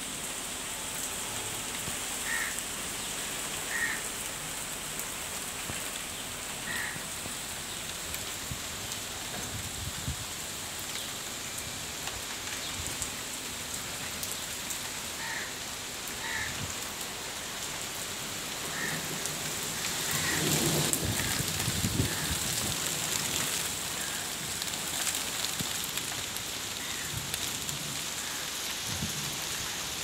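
Steady rain falling, a constant even hiss of drops that swells louder for a couple of seconds about two-thirds of the way through, with a few short high notes scattered through the first two-thirds.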